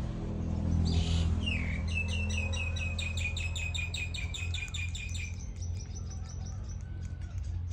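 A bird's rapid chirping trill, about six high notes a second for roughly three seconds, led in by a short falling chirp, over a steady low hum.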